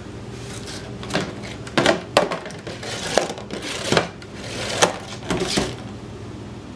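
Cardboard 12-pack soda box knocking, rattling and scraping as a cat paws inside it after an ice cube: an irregular string of sharp knocks and rustles that stops near the end, over a steady low hum.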